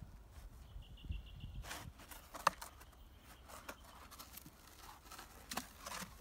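Hollow plastic traffic cone knocking and scraping on a gravelly dirt yard as a horse noses it, picks it up in its teeth and sets it down: a few scattered sharp clacks, the loudest about two and a half seconds in and another near the end.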